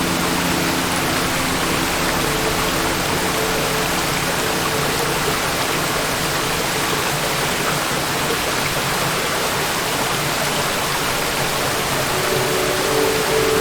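Waterfall: water falling and splashing in a steady, unbroken rush. A few faint low steady tones sit under it, fading out at the start and coming back near the end.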